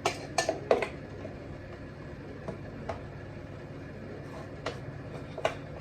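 Sharp knocks and clicks of kitchen utensils and dishes being handled, three close together in the first second and a few more spread out later, over a steady low hum.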